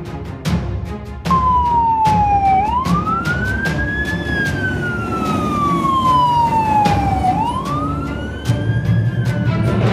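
Wailing siren for the toy fire engine, starting about a second in: its pitch sweeps up quickly and sinks slowly, twice, over background music.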